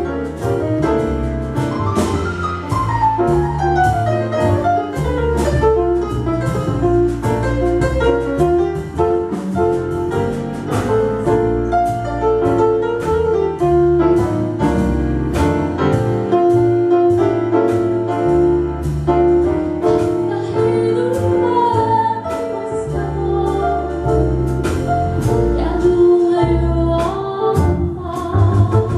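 Russian pop song playing: a woman singing over band backing with a steady drum beat.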